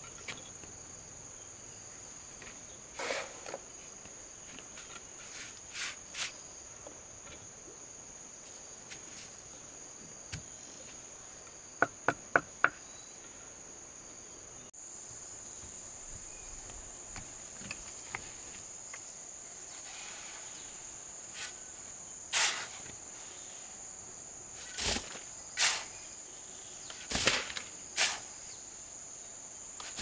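Intermittent knocks and scrapes of block-laying: a steel trowel tapping and scraping concrete blocks set in mortar, with four quick sharp taps before the middle, then a shovel scraping and tipping mortar mix out of a wheelbarrow in the last third. Insects chirr steadily at a high pitch behind it.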